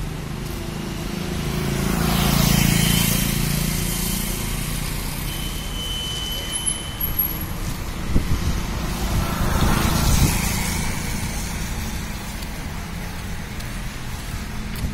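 Road traffic: a steady low rumble with vehicles passing close by, one swelling up about two seconds in and another, with a few sharp knocks, around eight to ten seconds in.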